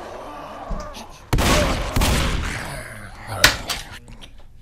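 Loud, rapid knocking and rattling on a door for a second or two, then a single sharp click as its lock is worked, followed by a few small clicks.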